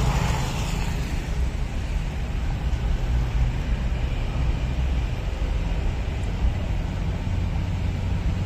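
Street traffic ambience: a steady low rumble of passing vehicles.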